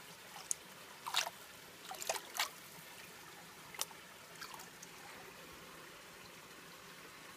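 Water splashing in a green plastic gold pan as it is dipped into creek water and swirled: a few short splashes in the first half, then only a faint steady hiss.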